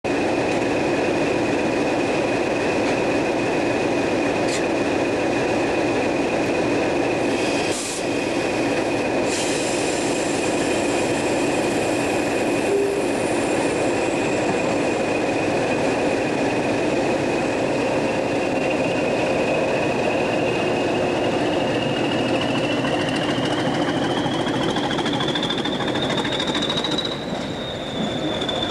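Class 20 diesel locomotive's English Electric eight-cylinder engine running with a steady high turbocharger whistle over the engine noise. Near the end the whistle climbs in pitch as the engine is opened up, then eases off a little.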